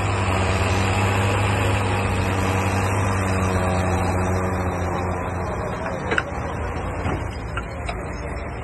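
John Deere 6610 tractor's diesel engine running with a steady low hum, easing slightly about halfway through, with a single sharp click about six seconds in.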